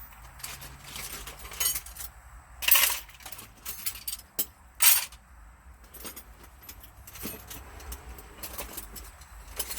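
Small metal tools clinking and rattling as they are handled and rummaged through, with louder clatters about three and five seconds in.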